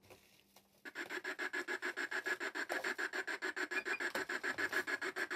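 Spirit box (PSB) sweeping through radio frequencies: choppy static that pulses about eight times a second, starting about a second in.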